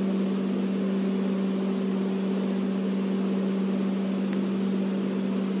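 Steady electrical hum with an even hiss behind it.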